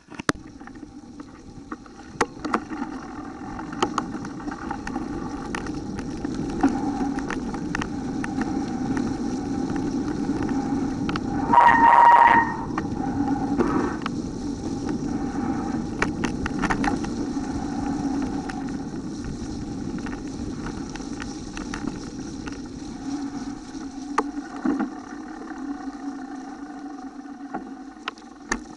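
Mountain bike descending a wet, rutted dirt trail, recorded from a camera on the bike: a steady rumble of tyres and wind with frequent clicks and rattles over bumps. A brief high squeal sounds once, a little before the middle.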